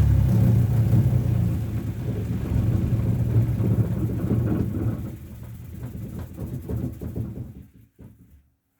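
Electric sander running with a low rumble, then slowing and dying away to a stop near the end.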